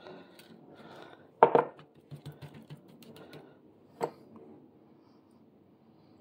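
A small glass bowl of seasoning being tapped and shaken out over raw chicken: two sharp clinking knocks, the louder about a second and a half in and another about four seconds in, with a few faint taps between them.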